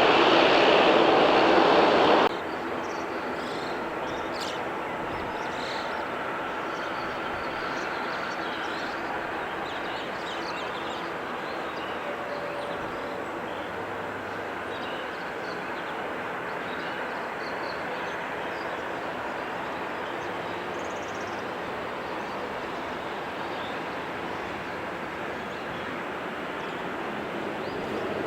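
Jet airliner engines running: a loud steady roar that cuts off abruptly about two seconds in, followed by a quieter, steady engine rumble with faint whining tones.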